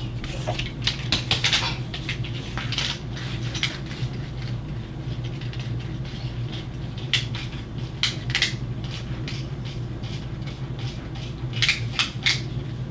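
Small metal diecast pull-back toy cars being handled and set on a track: scattered light clicks and clinks, a cluster of them about a second in, a few more around the middle, and another cluster near the end, over a steady low hum.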